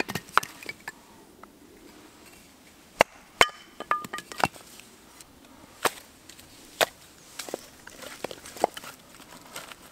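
Batoning kindling: a wooden baton strikes the back of a knife blade, driving it down through a thin stick on a wooden chopping stump. Sharp, irregularly spaced wooden knocks, around eight of them.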